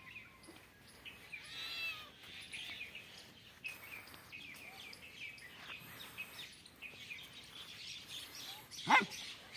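Small birds chirping in the background throughout. About nine seconds in comes a single short, sharp animal cry, the loudest sound, as the puppy and tabby kitten face off.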